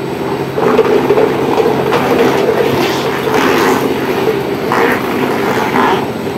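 Vaagai-wood chekku oil press running with a steady low mechanical drone. Dried coconut pieces are tipped from a plastic basin into its steel pan, clattering in several bursts midway through and near the end.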